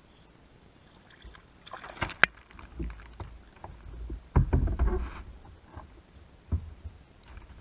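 Irregular knocks and thumps against a kayak, with a sharp click about two seconds in and the heaviest thumps just past the middle.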